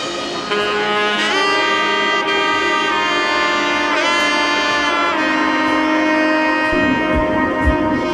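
Background music: a melody of long held notes with a few pitch bends, with low drum beats coming in near the end.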